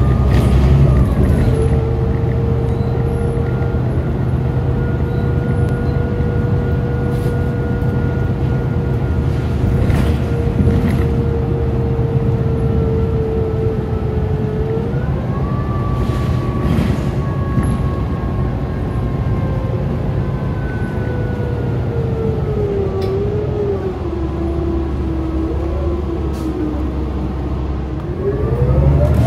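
City bus heard from inside the cabin while riding: the engine and drivetrain run under a steady low drone, with a whine whose pitch follows road speed, stepping up about halfway, sinking slowly over the last several seconds as the bus slows, then climbing again at the very end as it pulls away. Occasional knocks and rattles.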